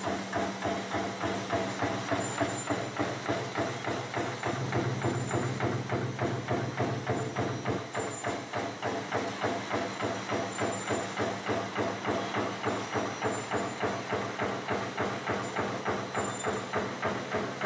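Razor barbed tape production machinery running: a fast, even mechanical clatter at about three beats a second over a steady low hum.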